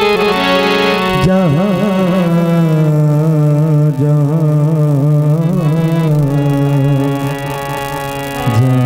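A male singer holding a long, wordless, ornamented vocal line into a microphone over a steady instrumental accompaniment; the voice wavers up and down in pitch and the sound drops back briefly near the end before picking up again.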